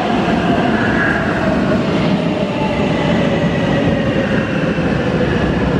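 Munich U-Bahn metro train pulling into an underground platform: a loud, steady rumble of wheels on rail, with a motor whine that falls slowly in pitch as the train slows.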